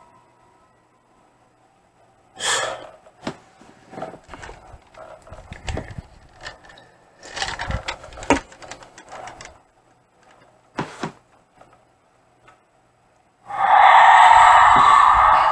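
A scattering of soft knocks and clicks, then about two seconds before the end a loud sustained chord from a horror-film soundtrack cuts in suddenly.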